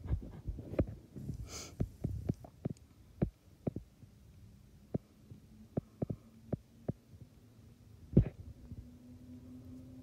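A run of irregular, soft, dull knocks and bumps, the loudest a little after eight seconds in. A short hiss comes about a second and a half in, and a faint steady hum starts about halfway through.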